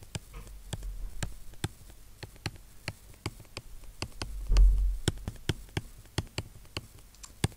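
Stylus tip tapping and clicking on a tablet or pen display while writing an equation by hand: irregular sharp clicks, a few each second. A low thump about four and a half seconds in.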